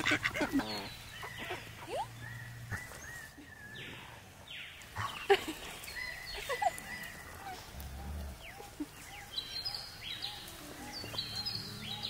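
Domestic ducks quacking and calling in short, irregular bursts, with higher chirps near the end.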